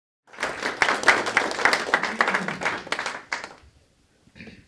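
Audience applauding, many hands clapping at once, starting just after the start and dying away after about three seconds.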